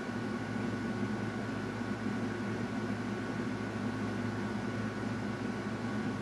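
Steady background hum and hiss with a couple of faint constant tones, like a fan or other small machine running in the room; nothing changes throughout.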